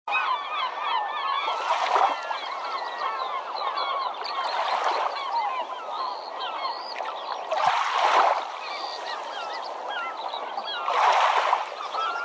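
A large flock of birds calling all at once, many short overlapping calls. A broad rushing swell rises and falls about every three seconds.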